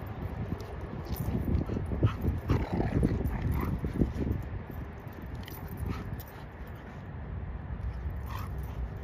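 A corgi and a golden retriever play-fighting, with a few short high yips and whines, mostly between about two and four seconds in and once more near the end, over a steady low rumble.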